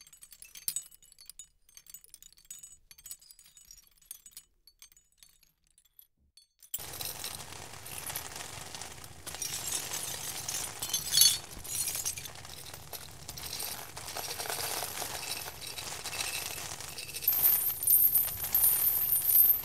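Sparse, faint, high clinking ticks, then about seven seconds in a dense steady rain hiss starts abruptly and keeps going, heavier in spells.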